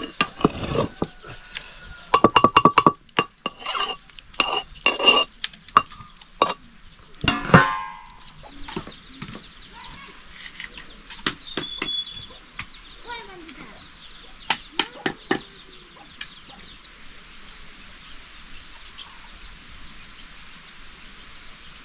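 Chickens clucking, mixed with sharp metal clinks and knocks of a cooking pot and its lid in the first several seconds. After that comes a faint steady hiss with a few scattered clicks.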